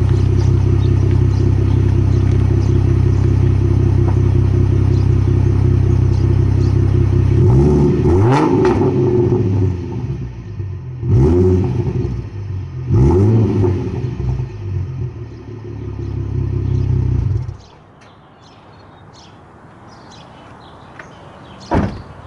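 A 2012 Ford Mustang V6 heard at its quad exhaust tips through Flowmaster Super 10 mufflers. It idles steadily, is then revved sharply three times, each rev rising and falling quickly, and runs on until the engine cuts off suddenly about three-quarters of the way in. A single sharp click follows near the end.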